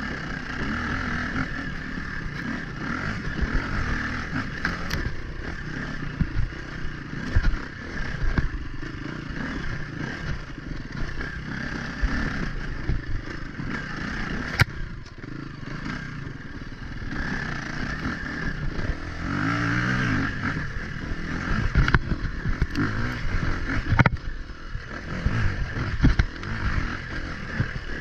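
Dirt bike engine revving up and down while riding through deep snow, with a few sharp knocks along the way.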